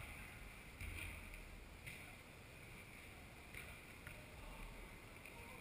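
Faint, echoing ambience of an indoor football hall during play, with a few soft thuds.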